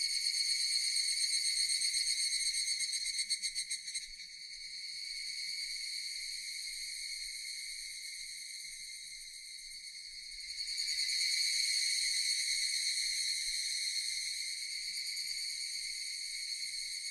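Japanese cicadas singing in chorus, a shrill, high buzz. It is loud at first, flutters and drops about four seconds in, then swells loud again about ten seconds later.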